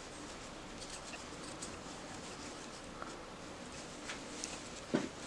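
Faint rustling of yarn being drawn through with a crochet hook as stitches are worked, with a few soft ticks and a sharper one about five seconds in.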